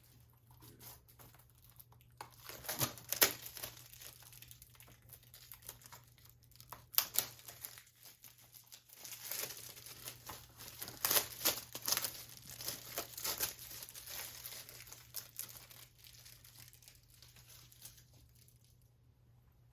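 Plastic shrink-wrap being torn and crumpled off a Blu-ray case: irregular crackling and ripping that comes in a burst about three seconds in and again from about nine to fifteen seconds.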